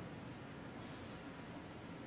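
Quiet arena hush: faint steady background noise with no distinct event.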